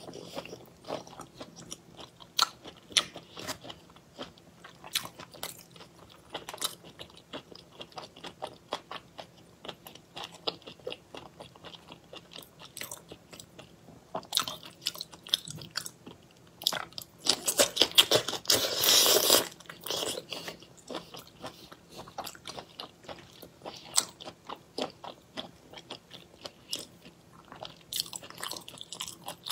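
Close-miked eating of shrimp in chili sauce: steady chewing and biting with many short crunchy clicks, and a louder, denser run of crunching just past the middle.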